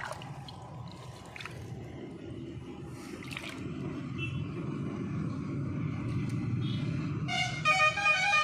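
Steady low outdoor rumble, then a vehicle horn sounding in a few short honks near the end, the loudest sound.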